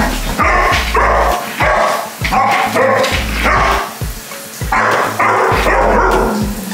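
Golden retriever puppy barking and yipping in a run of repeated bursts, with a short break about halfway through, over background music with a steady bass.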